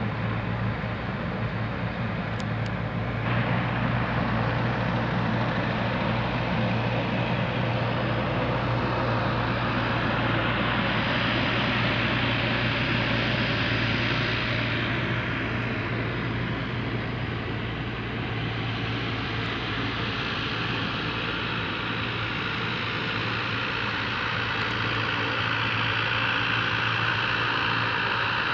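An ATR 42-300 turboprop airliner's twin engines and propellers running, a steady low propeller hum under a hiss that swells twice.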